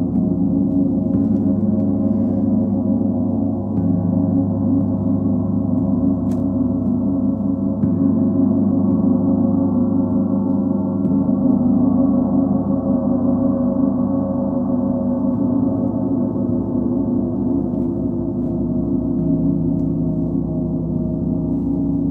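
Large planet gongs (Sun, Full Moon and Earth gongs) played together with a soft mallet, making a continuous, steady wash of overlapping ringing tones over a deep hum. The low notes shift every few seconds, with no sharp single strikes.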